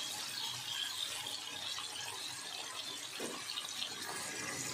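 Small shrimp frying in hot oil in a kadai, a steady sizzling hiss.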